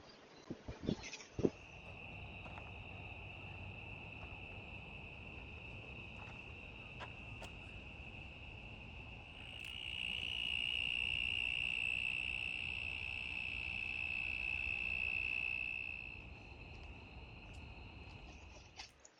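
Insects buzzing in a steady, high, continuous drone that swells louder for several seconds in the middle before easing back, over a faint low rumble.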